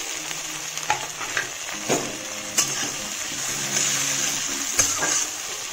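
Chopped capsicum, onion and tomato sizzling in hot mustard oil in a metal wok, with a steady frying hiss. A metal spatula stirs them, clinking and scraping against the pan several times.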